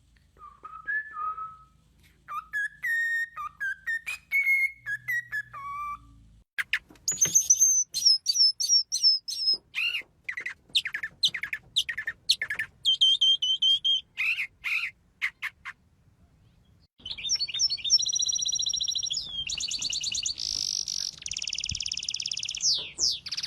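Birds singing: whistled phrases first, then quick falling chirps, and after a short pause near the middle, fast rattling trills.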